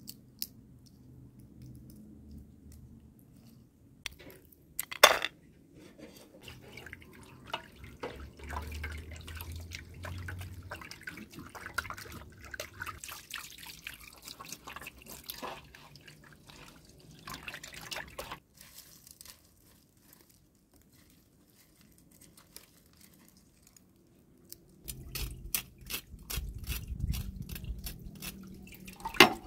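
Water splashing and dripping, with many short clicks and scrapes, as a whole fish is cleaned with a knife in a metal basin of water. A quiet spell comes about two-thirds of the way through, and the water grows louder near the end.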